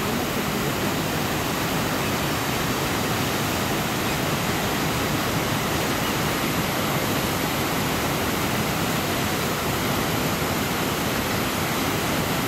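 A river waterfall rushing steadily, white water pouring over a rock ledge.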